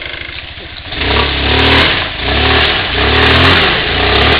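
Linhai ATV engine idling, then from about a second in revved hard in three rising-and-falling surges under load, the quad stuck in deep mud and being pushed.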